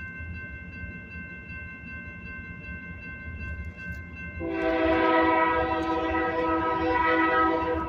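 Union Pacific GE AC44CW locomotive's air horn sounding one long blast for the grade crossing, starting about halfway in and holding to near the end. Under it, the crossing bell rings steadily.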